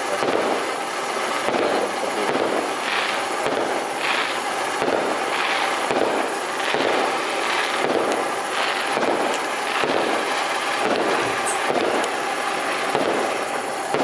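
Handheld gold-flower waterfall fountain firework (460×40×34 mm) spraying sparks with a loud, steady hiss that surges in pulses roughly every half second to second.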